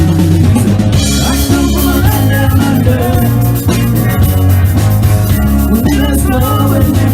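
A rock power trio playing: electric guitar over bass and drum kit, with heavy held bass notes and a busy drum beat.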